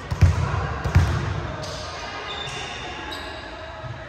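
A volleyball bounced on a hardwood gym floor, two bounces in the first second as before a serve, then only the hall's background noise.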